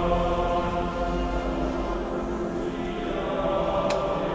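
Choir singing slow, chant-like sacred music with long-held notes.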